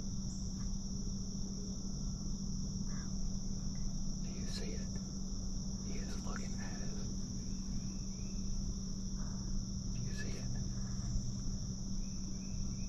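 Steady high-pitched chorus of insects in the woods, with a few brief faint sounds about a third, halfway and three-quarters of the way through.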